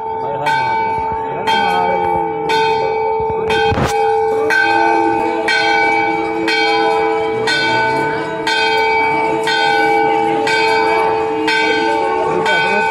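Hindu temple bells rung steadily, about one strike a second, each stroke ringing on into the next. Crowd voices underneath.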